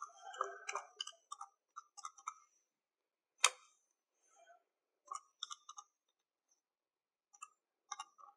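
Calculator keys being pressed: runs of soft, quick clicks, with one sharper click about three and a half seconds in.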